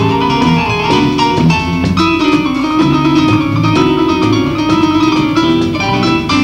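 Live instrumental music: an electric guitar picks a line of quick plucked notes over electric bass.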